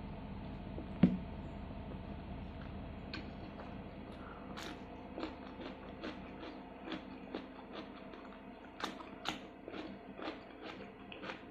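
A person chewing food close to the microphone, with sharp wet mouth clicks about twice a second. A single loud thump about a second in.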